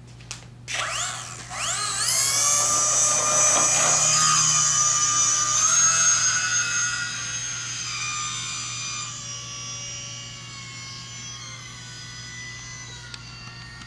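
Electric motor and propeller of a Typhoon 2 3D RC plane spinning up with a rising whine about a second in, then holding a steady high whine. The whine fades slowly over the last several seconds.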